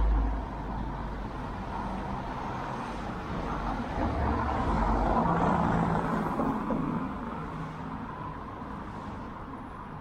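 A motor vehicle passing on a city street: its engine hum grows louder about four seconds in and fades away after about seven seconds, over steady street noise. A brief low thump comes right at the start.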